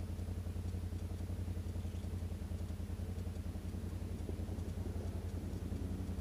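Quad bike (ATV) engine running steadily at low revs, with an even, rapid pulse and no revving.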